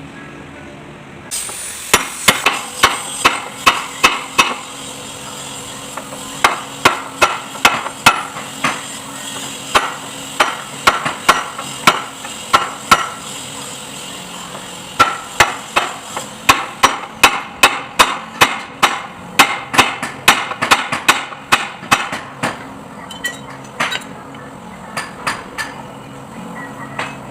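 Hammer blows on metal, struck in quick runs of about three a second with short pauses between runs, each blow ringing briefly.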